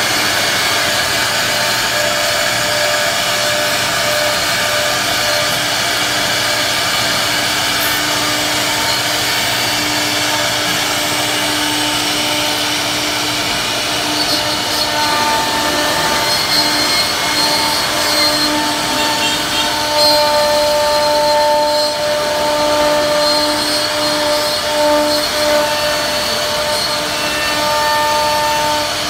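CNC router spindle routing grooves into a solid-wood door panel: a steady machine whine over the noise of the cutting bit, its tones shifting about halfway through.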